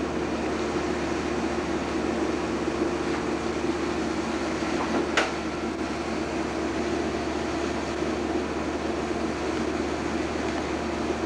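Steady mechanical hum and hiss of room background noise, with a single sharp click about five seconds in.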